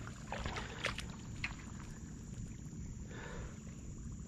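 Faint handling of a baitcasting rod and reel: a few light clicks in the first second and a half and a soft rustle about three seconds in, over a low steady rumble.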